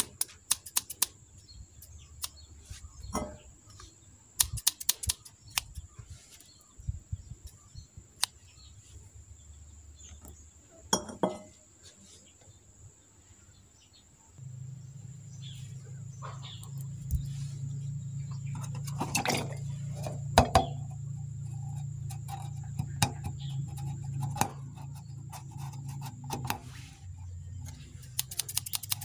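Scattered sharp clicks and taps from scissors and balloons being handled, over a faint steady high whine. About halfway a steady low hum sets in beneath the taps.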